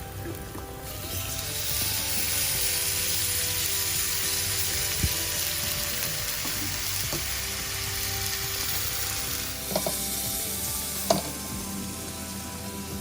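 Food sizzling in hot oil in a pan. The sizzle swells in about a second in and dies down near the end, with a few sharp clicks of a utensil. Soft background music plays underneath.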